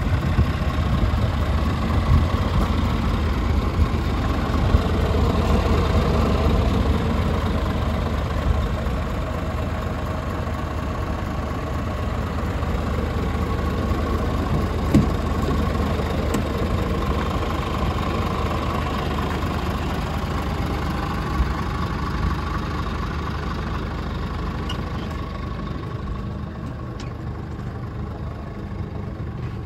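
Scania R450 truck's 13-litre inline-six diesel idling steadily with a constant low drone. A single sharp click comes about halfway through, and the idle grows a little fainter near the end.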